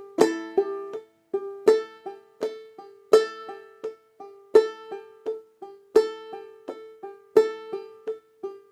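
Banjolele played clawhammer style on open strings in a steady eighth-note rhythm. Soft, almost ghosted notes alternate with a loud accented strike about every one and a half seconds, bringing out the backbeat.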